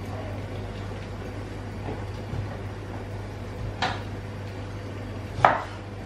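Steady low kitchen hum, with two short clinks of kitchen utensils near the end, the second louder.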